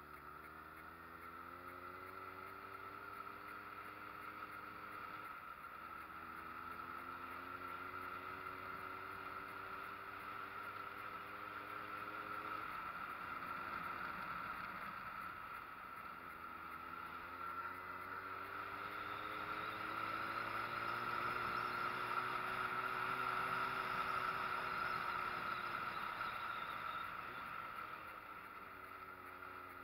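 Street motorcycle engine pulling up a mountain road: its pitch climbs for several seconds and drops three times, with a steady rushing noise over it, loudest in the second half.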